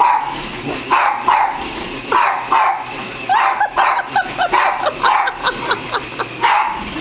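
Pug barking repeatedly in short, excited barks, with high yips and whines in between, reacting to a spinning remote-control toy car.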